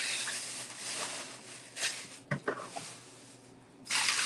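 Plastic grocery bags rustling as they are handled, with a few short knocks of items against the counter about two seconds in. Near the end a louder steady rushing sound starts.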